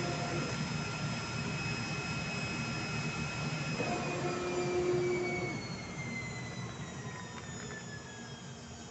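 CNC oscillating-knife cardboard cutting machine running with a steady whine over a low hum. About four seconds in a short lower tone sounds, then the whine falls steadily in pitch and fades as a motor spins down.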